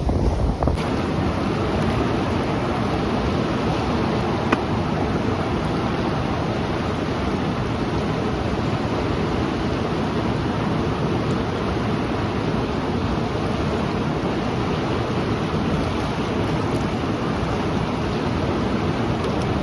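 Steady, unbroken roar of rushing, falling water from a waterfall.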